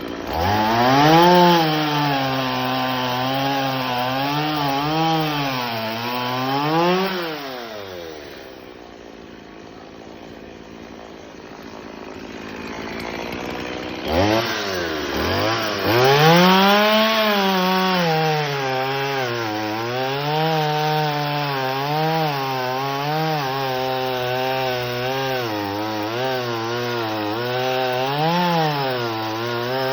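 Chainsaw running and cutting wood, its engine pitch rising and falling as the chain bites. It winds down about eight seconds in, then revs up again about six seconds later and keeps cutting.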